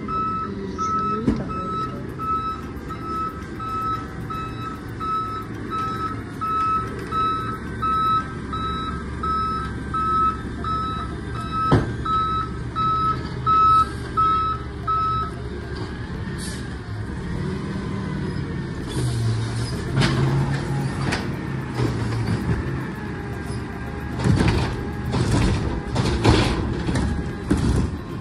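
Automated side-loading garbage truck reversing, its backup alarm beeping steadily over the diesel engine; the beeping stops about halfway through as it pulls up beside the carts. The engine then revs to power the hydraulic arm, and near the end there are sharp clanks as the arm grips a trash cart.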